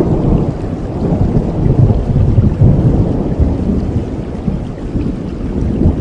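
Thunder rolling over steady rain, building from about the start to its loudest around halfway through, then easing off.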